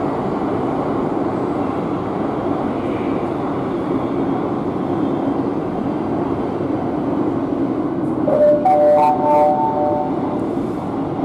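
Madrid Metro 8000-series train running, a steady rumble of wheels and motors heard from inside the car. About eight and a half seconds in, a rising three-note chime sounds, the on-board signal ahead of the next-station announcement.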